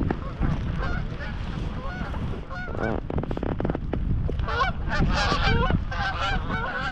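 Canada geese honking in a flock overhead, the calls thickening in the second half, over strong wind buffeting the microphone.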